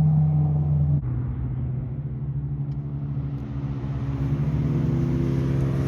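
A car engine running at low revs, steady and deep. About a second in it drops suddenly to a lower pitch and level, then its pitch rises slowly near the end.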